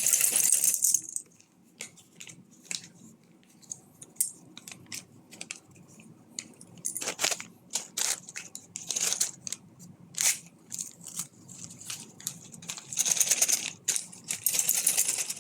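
Small plastic Lego parts bags crinkling and Lego bricks clicking and clinking together as they are handled and sorted, with louder bursts of bag rustling right at the start and again from about thirteen seconds in.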